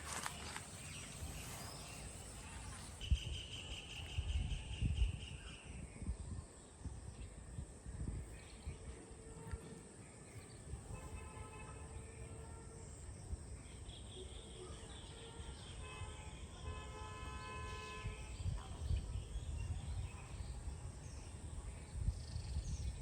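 Outdoor ambience with low wind rumble on the microphone and high, pulsed animal calls.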